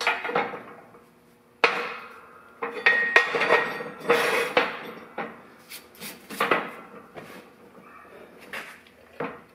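Heavy steel plates on a shop press bed clanking and scraping as they are moved and set in place. There is a string of about eight metal knocks, several of them ringing on briefly.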